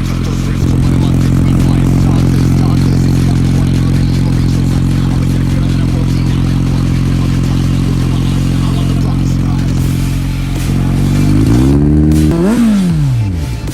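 Kawasaki Z900's 948 cc inline-four running through an SC Project CR-T slip-on exhaust, holding a steady note. Near the end it is revved once, the pitch climbing sharply and then dropping back.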